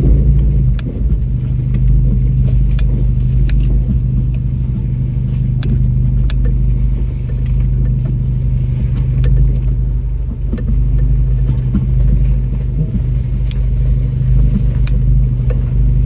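Off-road truck engine running steadily at low speed while crawling over rough trail, with scattered clicks and knocks of the truck's body and loose gear rattling as it lurches over the terrain.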